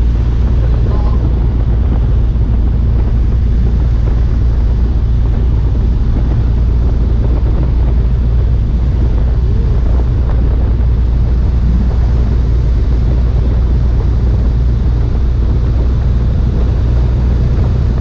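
Light airplane in flight, heard from aboard: steady drone of the engine and propeller with wind rushing over the microphone.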